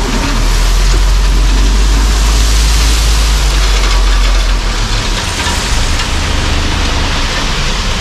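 Dump truck engine running while a load of crushed gravel pours out of the raised bed through the tailgate, a steady rush of sliding stone over the engine's low drone. The engine drone drops about halfway through.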